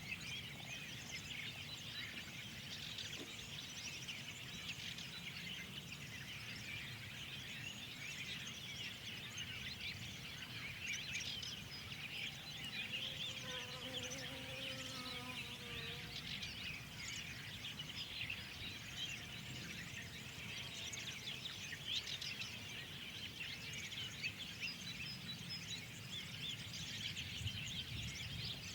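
Many songbirds chirping and singing at once, a dense, continuous chorus over a low steady background rumble. About halfway through, a lower, wavering, drawn-out sound rises briefly under the chirps.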